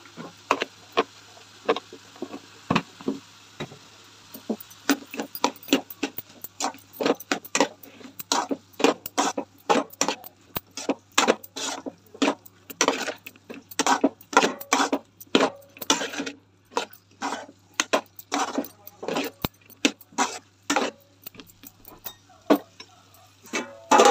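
Metal ladle scraping and clinking against the inside of a metal cooking pot as cauliflower curry is stirred, in irregular strokes a few times a second that grow busier after the first few seconds. Near the end a steel plate clatters down onto the pot as a lid.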